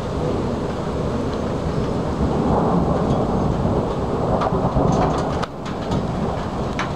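Thunder rumbling on without a break during a heavy thunderstorm, with rain falling. A few sharp ticks come in the second half, and the rumble dips briefly about five and a half seconds in.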